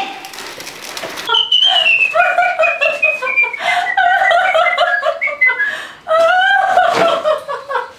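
A woman's high-pitched laughter in a long, choppy run that slides downward in pitch, then a second burst of laughter after a brief break about six seconds in.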